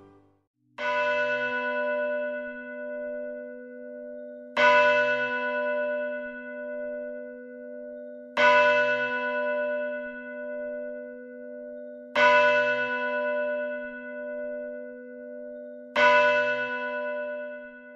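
A church bell tolling five times, one stroke about every four seconds, each ringing on and fading before the next.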